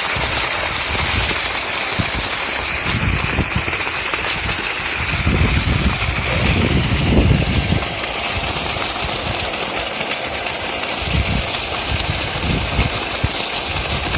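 Water gushing from a solar-powered pump's outlet pipe and splashing onto the ground, a steady rushing noise, with an uneven low rumble through it that swells about halfway through.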